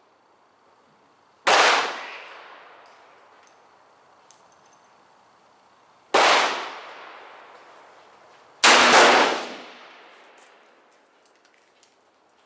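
Three loud shots from a .44 Special Bisley single-action revolver, fired slowly one-handed, the second about five seconds after the first and the third two and a half seconds later. Each report rings out with a long echoing decay. The load is a mild target load: a 262-grain cast bullet over 4.5 grains of Bullseye powder.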